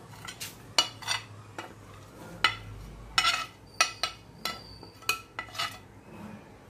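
Steel spoon clinking and scraping against a plate and a metal kadhai as grated dry coconut is scraped in and stirred among dry-roasting spices: about a dozen sharp, irregular clinks.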